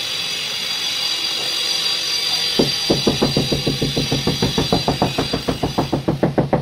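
Rapid, even tapping, about five knocks a second, starting about two and a half seconds in: a wooden tool handle knocking down a 2×2 ft ceramic floor tile to bed it into wet cement mortar. Before the tapping, only a steady hiss.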